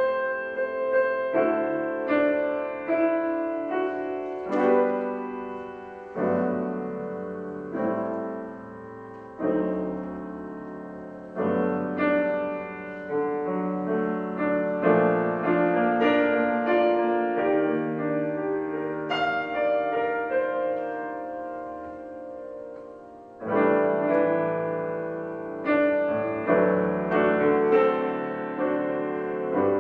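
Grand piano played solo in a slow jazz ballad, with rich reharmonized chords struck and left to ring, and a melody moving over them. The playing thins to a soft, decaying stretch a little after the middle, then a loud new chord comes in.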